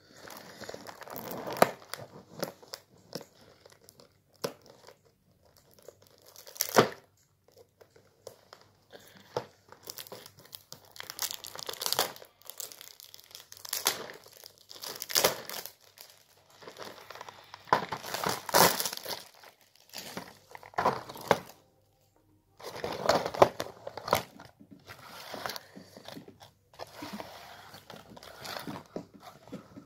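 Packaging of a box of chocolates being torn open and crinkled by hand, in irregular bursts with short pauses between them.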